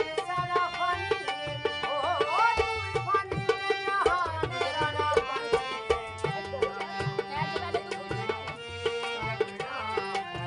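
Live folk music: a harmonium playing sustained reedy chords and melody, with a hand drum keeping a steady rhythm. A singing voice glides over it in the first half.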